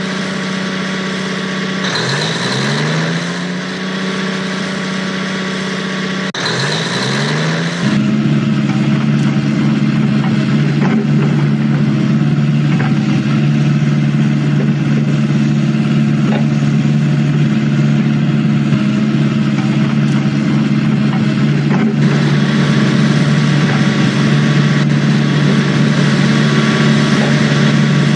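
Truck engine revving up in three short rising surges, then running steadily at a low, even pitch.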